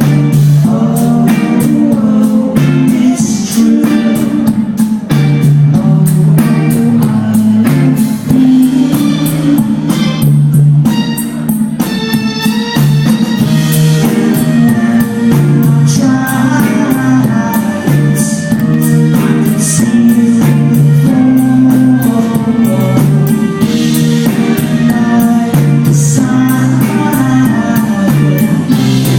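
A live pop-rock band playing loudly: guitars and bass over a steady drum beat.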